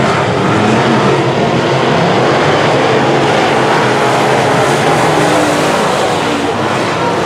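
Semi late model race cars running together at racing speed. Several engines rev at once, loud and continuous, their pitches wavering up and down as the pack goes around.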